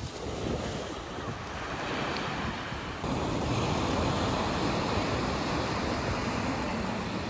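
Small waves breaking and washing up a sandy beach: a steady rush of surf, a little louder from about three seconds in.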